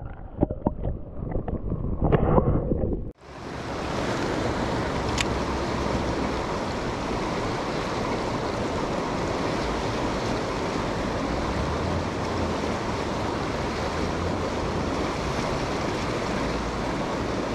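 Dull underwater sloshing and knocks with the treble cut off as a hand releases a perch below the surface. About three seconds in this cuts off suddenly and gives way to the steady hiss of fast-flowing river current.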